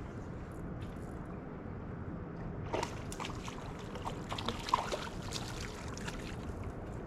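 A hooked hickory shad splashing and thrashing at the water's surface in a cluster of splashes and splatters lasting about two and a half seconds, starting about three seconds in. Under it runs a steady low wash of river water.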